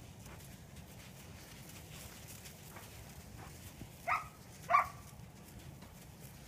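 Herding dog giving two short, sharp barks about half a second apart, a little after four seconds in, over a low steady background.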